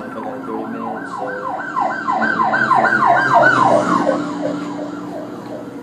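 Emergency vehicle siren in fast yelp mode going by: quick rising-and-falling wails, about three a second, growing louder to a peak past the middle, then dropping in pitch and fading.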